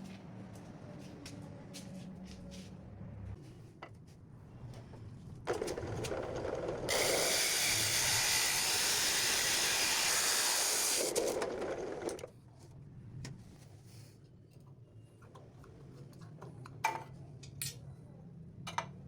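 A loud, steady spray hiss lasting about six seconds, starting about five and a half seconds in and cutting off near the middle. Light clicks and knocks of handling come before and after it.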